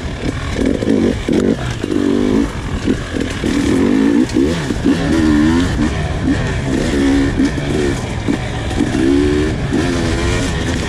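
Husqvarna TE300 two-stroke dirt bike engine revving up and down again and again in short throttle bursts, its pitch rising and falling every second or so.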